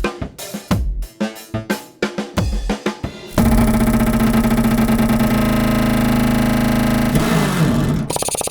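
Workshop air tools: a quick run of sharp pneumatic hits several times a second, then, about three seconds in, the steady loud pitched hum of an air tool running flat out, breaking into a rapid stutter of strokes near the end.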